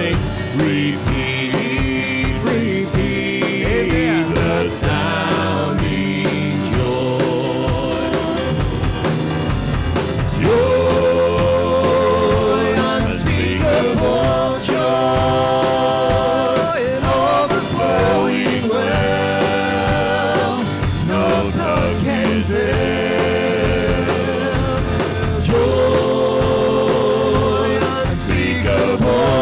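Live church worship band playing with singing over drums.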